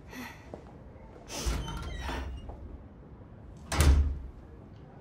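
A door being opened with a scraping rattle, then shut with a single heavy thud nearly four seconds in.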